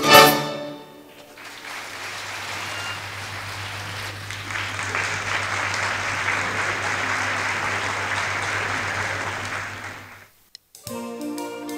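Orchestra's closing chord dies away in the first second, then an audience applauds steadily for about nine seconds over a low steady hum. The applause fades and cuts off, and music starts again near the end.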